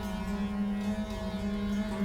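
Rudra vina playing in Hindustani dhrupad style, a passage of Rag Yaman. A long sustained low note rings with rich overtones and bends slightly in pitch about a second in.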